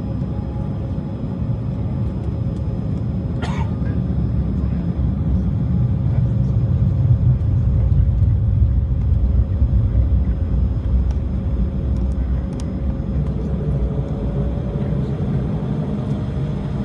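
Inside the cabin of a jet airliner taxiing onto the runway: engines running at low power with a steady whine over a low rumble, growing a little louder toward the middle. One brief click about three and a half seconds in.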